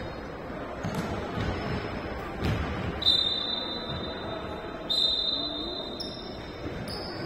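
Echoing sports-hall noise during a korfball game: the ball thudding on the floor several times, with a few short high squeaks of about a second each.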